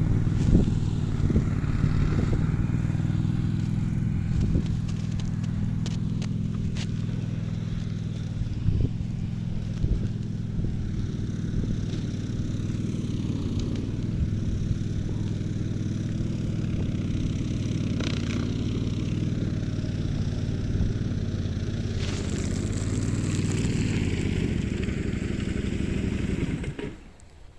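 An engine running steadily, with a few light clicks and scrapes over it, cutting off abruptly near the end.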